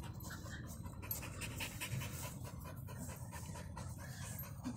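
A dog panting, a run of short, breathy pants.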